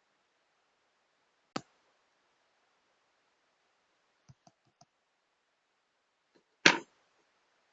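Sharp clicks and light ticks from the parts of an Asus Eee PC 1000H netbook being handled while its RAM is swapped. There is one click about a second and a half in, three faint ticks around the middle, and a louder, slightly longer click near the end, over a faint hiss.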